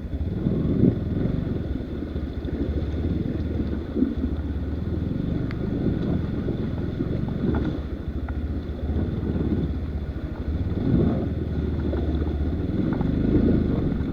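Enduro dirt bike engine running steadily at low revs, with a few short knocks and wind on the microphone.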